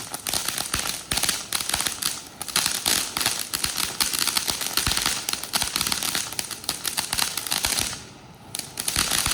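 Ground firework crackling: a rapid, dense run of small pops and snaps that eases off briefly about eight seconds in, then picks up again.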